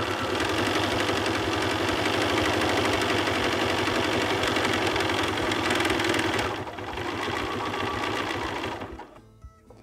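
Computerised sewing machine running steadily, stitching a dense zigzag through cotton fabric with a fast, even patter of needle strokes. It eases off a little over six seconds in, runs on a bit more quietly and stops about nine seconds in.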